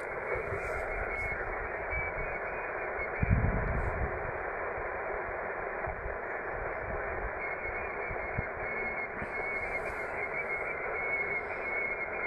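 Shortwave receiver hiss and static from a Yaesu FT-450D transceiver's speaker, tuned to a weak single-sideband station on a poor band, the sound squeezed into the narrow voice passband. A brief low thump comes about three seconds in, and a faint high whistle comes and goes near the end.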